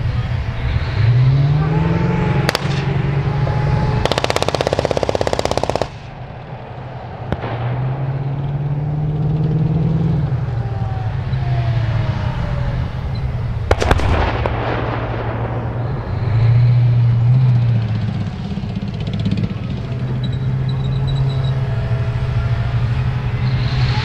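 Tracked Bradley fighting vehicles driving, their diesel engines rising and falling in pitch as they maneuver. A rapid burst of machine-gun fire lasts about two seconds a few seconds in and cuts off suddenly. Single sharp cracks come about two and a half seconds in and again near the middle.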